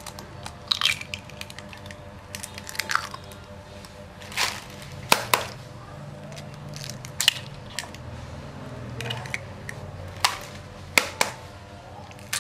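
Duck eggs being cracked against a bowl and opened onto chopped green onions: sharp cracking taps, including a close pair about five seconds in and another about eleven seconds in, among lighter handling clicks.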